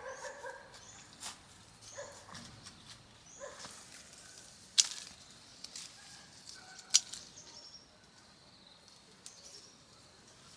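Two sharp knocks about two seconds apart, with smaller clicks and short high chirps in between.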